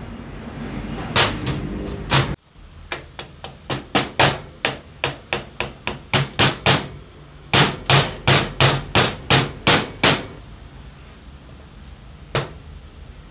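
Soft-faced mallet repeatedly striking metal, tapping the hinge pin into the cast base of an old Makita groove cutter: sharp blows about three a second in two runs, stopping about ten seconds in.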